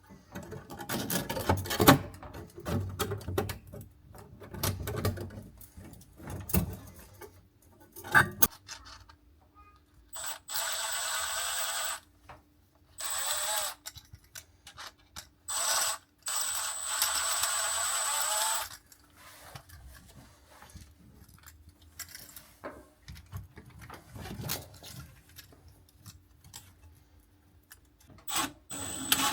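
Knocks, clicks and scraping of hand work on parts, then a small power tool runs in four short bursts of one to three seconds each, with a steady high whine, before the knocking and handling resume.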